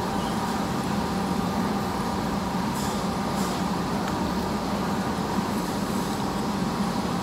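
Steady, fairly loud mechanical background hum and rumble with faint constant tones, like machinery or ventilation in a large hall. Two short clicks come about three seconds in.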